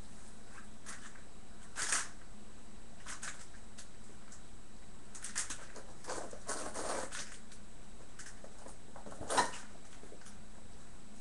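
Bearded collie puppies moving about on a wooden floor and mat: scattered short scuffles and knocks, the loudest about nine seconds in, over a steady faint hum.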